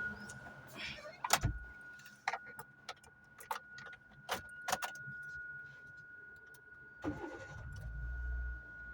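Hyundai Santro being started: several sharp clicks and knocks with keys jangling, then a low engine rumble starting about seven seconds in as the engine cranks and catches. A steady high tone runs underneath.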